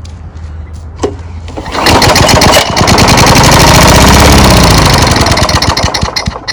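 Tecumseh lawn mower engine starting about two seconds in and running loudly, speeding up and then slowing again. It fires on fuel just added, with the owner suspecting a dirty carburetor.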